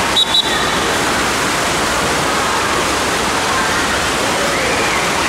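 Steady rush of water echoing through an indoor water park hall, with faint children's shouts under it. Two short high beeps sound just after the start.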